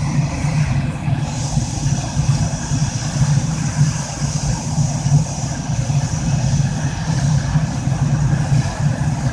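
F/A-18 Hornet jet fighters taxiing, their twin General Electric F404 turbofan engines running at low taxi power: a steady deep rumble under a high jet whine that grows stronger about a second and a half in.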